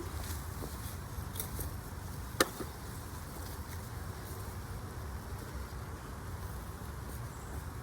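Digging and handling of potatoes in garden soil: scattered soft knocks and scrapes, with one sharper knock about two and a half seconds in, over a steady low rumble.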